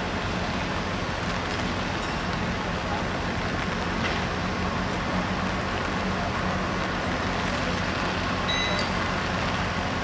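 Heavy diesel construction machinery running steadily at a constant speed, a low even engine drone. A couple of faint, short, high-pitched chirps near the end.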